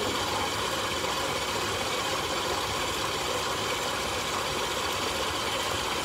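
Stand mixer motor running steadily at speed, beating butter with brown and white sugar in its steel bowl.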